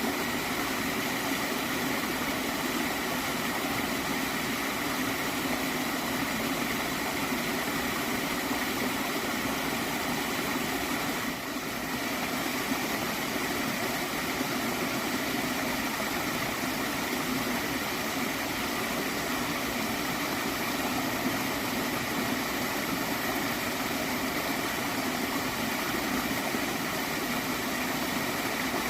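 Gently flowing stream water gurgling in a steady, unbroken rush.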